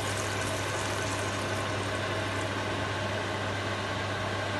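Water poured into a wok of cooking shrimp during the first couple of seconds, then the liquid simmering, over a steady low machine hum.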